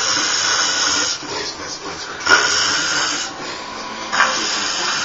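Snoring during sleep: three long, airy breaths about two seconds apart, each with a hissing rasp and no clear tone.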